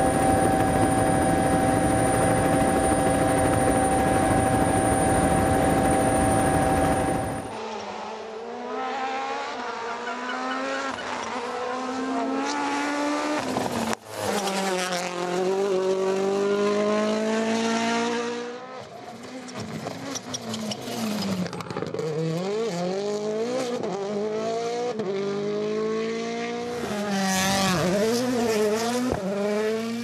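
Rally1 rally cars' turbocharged four-cylinder engines at full throttle on tarmac stages. First comes a loud steady high-revving engine note with a high whine for about seven and a half seconds. Then engines rise and fall in pitch again and again through gear changes and downshifts.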